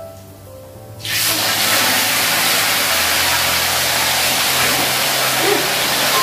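Catfish pieces dropped into a wok of hot oil, breaking into a loud, steady sizzle about a second in, over quiet background music.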